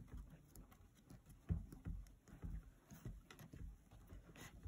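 Faint, irregular soft thumps and taps of fingers pressing and smoothing plasticine clay coils around a metal container.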